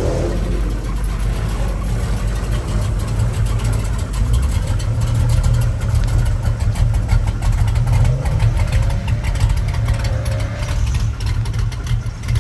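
Mopar muscle car engine idling, a steady low exhaust note with a fast pulsing beat.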